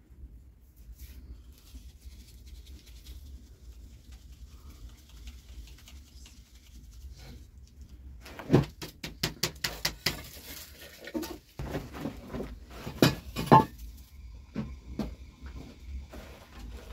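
Flour being sifted by hand through a round wooden-rimmed sieve: soft rustling at first, then from about halfway a quick run of sharp knocks and taps as the sieve is worked, thinning out to a few scattered taps near the end.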